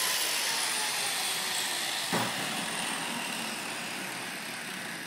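Power grinder winding down after cutting sheet metal: a fading whir whose pitch slowly falls, with a single sharp knock about two seconds in.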